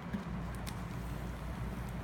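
A few light clicks and rustles of hands handling paper and packaging, over a steady low hum.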